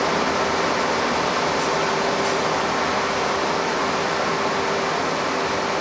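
Steady factory hall noise: an even rush with a faint constant hum, from the steaming fruit-cooking tanks and the plant around them.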